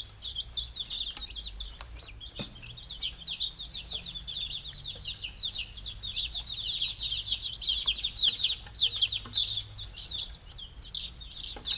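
A brood of week-old chicken chicks peeping continuously, many short, high, falling peeps overlapping one another.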